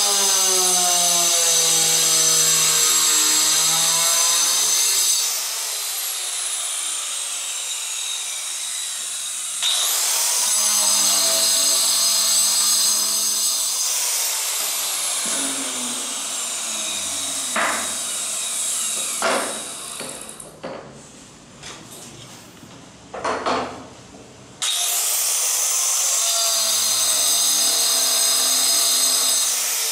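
Handheld electric tile saw with a diamond blade grinding through floor tile in three cuts, a loud high screech while the blade is in the tile. Between cuts the motor's whine falls as it runs down, and a few knocks sound in a quieter stretch before the last cut.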